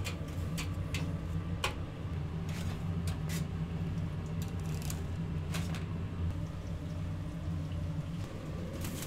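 Steady low machine hum, such as kitchen equipment running, with a few scattered clicks and short scraping sounds of hands working.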